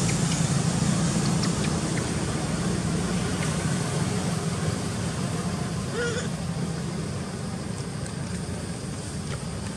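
Motorbike engine running, a steady low hum that slowly fades. A brief high-pitched sound about six seconds in.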